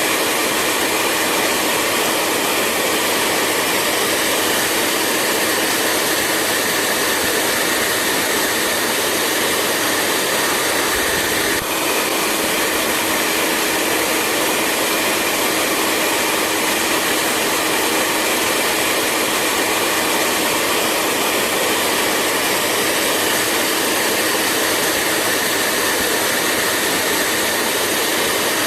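Hair dryer running steadily: a constant airy rush of blown air with a steady motor hum under it, with a brief slight dip about twelve seconds in.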